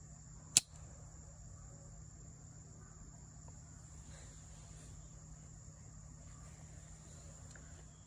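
A single sharp metallic click about half a second in as the antique pocketknives are handled, then only a faint steady high-pitched whine over a low hum.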